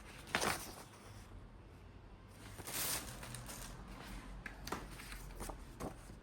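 Handling noises: a sharp click or knock near the start, a short rustle a little before halfway, then a few lighter clicks toward the end.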